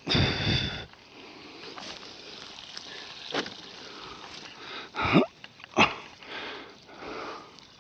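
Heavy breathing close to the microphone from a man digging potatoes by hand, with a loud breath at the start and a few short knocks and rustles of soil being worked, about three of them in the second half.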